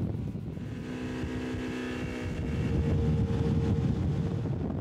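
Outboard motor running, with wind rumbling on the microphone; its steady hum shifts to a single higher tone about halfway through.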